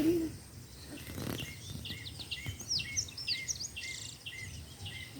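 Birds singing: a busy run of short, repeated chirps and quick whistles that starts about a second and a half in. A brief rustle comes about a second in.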